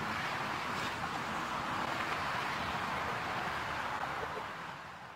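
Steady rush of highway traffic, cars passing at speed on a multi-lane road, easing off slightly near the end.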